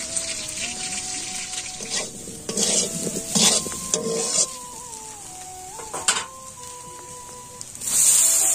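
Diced potatoes sizzling in hot oil in an iron wok, with a metal spatula scraping and turning them in several short strokes. About eight seconds in, the sizzle jumps to a loud hiss as wet spinach leaves are dropped into the hot oil.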